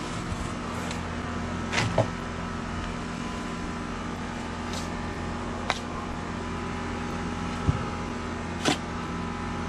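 A machine's steady hum, with a few sharp scrapes and knocks as a shovel digs into wet soil.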